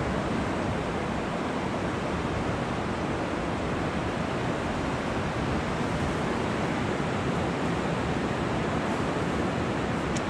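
Steady rush of ocean surf and wind.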